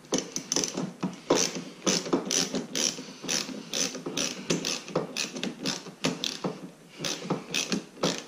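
Hand socket ratchet clicking in repeated short back-and-forth strokes, a few clicks a second, as it loosens the nut on a car battery's positive terminal.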